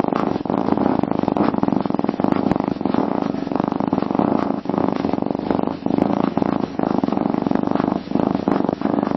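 A domestic cat purring close up: a steady low rumble with a few brief dips.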